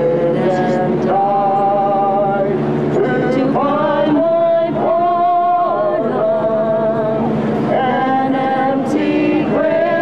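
Music: voices singing a slow song with long held, wavering notes.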